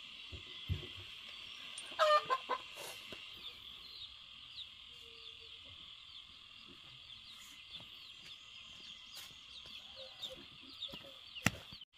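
A chicken clucking a few times about two seconds in, over a steady high insect buzz with scattered short chirps.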